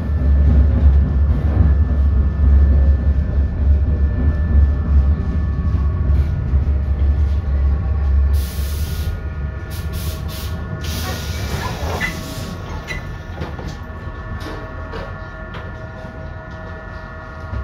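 Interior of a 1988 ASEA M31 articulated tram with thyristor control, running on its rails with a heavy low rumble and steady whining tones, then slowing and quietening as it pulls into a stop. About halfway through come short bursts of compressed-air hiss as the air-operated doors open.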